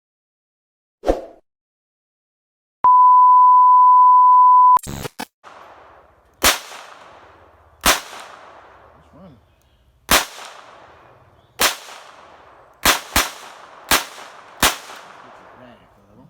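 A short knock, then a steady high beep about two seconds long. After that a GSG .22 LR pistol fires about nine single shots at an uneven pace, roughly a second apart, with two in quick succession near the end. The pistol cycles through the whole magazine on CCI ammunition without jamming.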